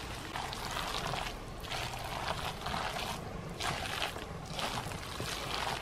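Gloved hand mixing raw pork mince, prawn and garlic chive dumpling filling in a stainless steel bowl, stirring in one direction: wet, sticky swishing strokes about once a second.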